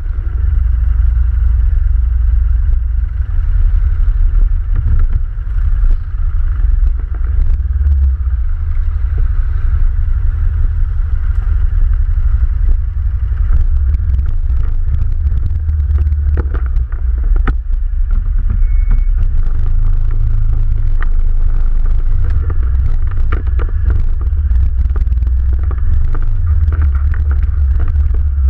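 ATV engine running steadily with a loud low rumble, with scattered knocks and rattles that come more often in the second half.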